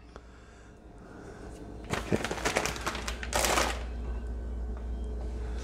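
A plastic bag of shredded lettuce crinkling and rustling as it is handled, starting about two seconds in, with a louder rustle a little past the middle.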